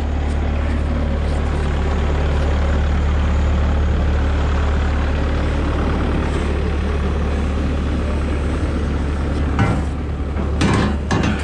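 Heavy engine idling steadily with a deep, even hum. A few sharp knocks come near the end.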